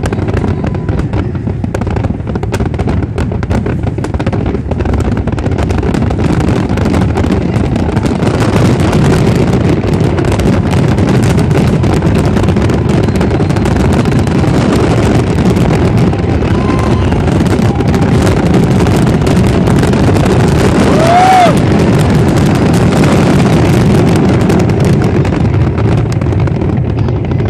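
Fireworks finale: a dense, unbroken barrage of aerial shells booming and crackling, growing louder after several seconds and easing off near the end. A short whistle rises and falls about two-thirds of the way through.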